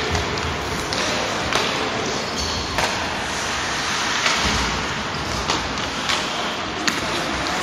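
Ice hockey play in an indoor arena: sharp, scattered clacks and knocks of sticks and puck on the ice and boards over a steady hiss, echoing in the large hall.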